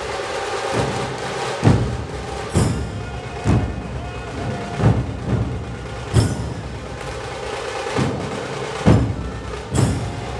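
Dhol-tasha drumming: big dhol drums strike loud, deep beats roughly once a second, a little unevenly, over a continuous dense drum rattle.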